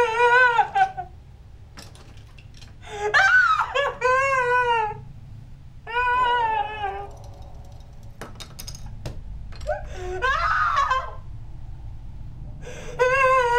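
A woman wailing and sobbing in a series of long, high, wavering cries, a few seconds apart.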